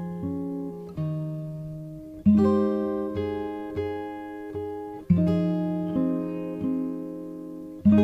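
Instrumental acoustic guitar: plucked chords that ring and fade, a strong new chord about every three seconds with lighter single notes picked in between.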